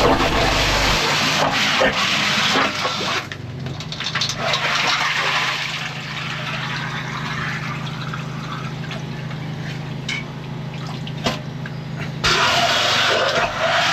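Water rushing and splashing over the steady drone of a drain-jetting machine's engine. The rush of water drops away about three seconds in, leaving mostly the engine hum, then comes back loud near the end.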